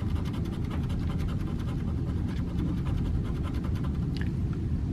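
A quarter scratching the latex coating off a lottery scratch-off ticket in quick back-and-forth strokes, over a steady low rumble.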